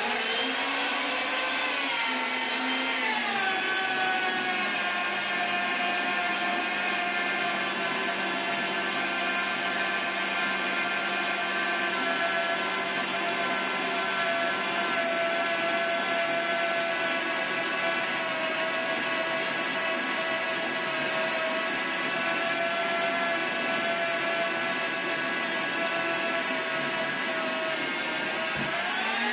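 Preenex 1550W magnetic drill's motor running while its annular cutter bores through a 1-inch-thick mild steel block. The motor whine drops in pitch a couple of seconds in as the cutter bites, holds steady under load, and climbs again near the end as the load comes off.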